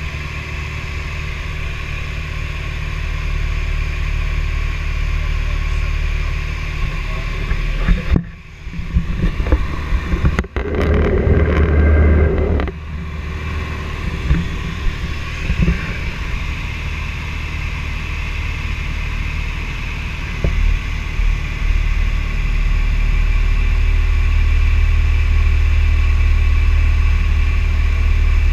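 Steady drone of a light plane's piston engine and propeller heard inside the cabin. About eight seconds in, several seconds of knocks and rubbing as the camera is handled, then the drone carries on and grows a little louder later on.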